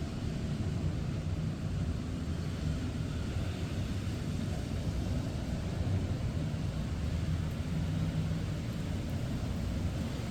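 Steady rain with a constant low rumble of road traffic.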